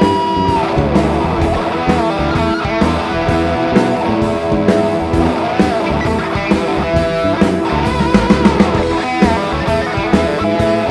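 Psychedelic rock playing with no vocals: a lead electric guitar with a held, wavering note that slides down just after the start, then more melodic lines over a drum kit.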